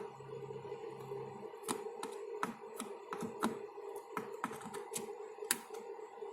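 Irregular small clicks and taps from parts and tools being handled on a repair bench, about a dozen spread unevenly, over a steady low hum; a deeper tone hums for the first second and a half.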